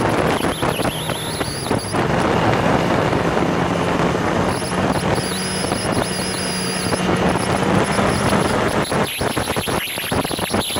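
Motorcycle engine running hard at track speed under heavy wind rush on an onboard microphone. The engine note rises over the first couple of seconds, then holds steady.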